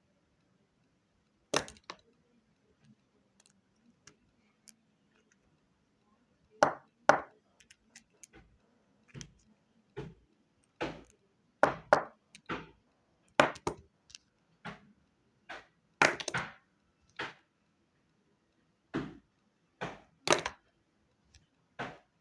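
A series of short, sharp cracks and knocks, some coming in quick pairs or clusters, with silent gaps between them.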